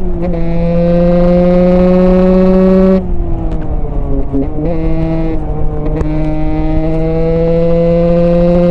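Single-cylinder Husqvarna supermoto engine under way, its pitch climbing steadily as it pulls, dropping back and falling off about three seconds in, then climbing again from about five seconds in.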